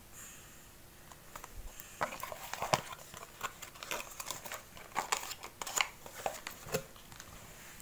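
Hands handling packaging: a run of short crinkles, rustles and light knocks starting about two seconds in, as a boxed candle is set down and a small cardboard box of wax melts is picked up.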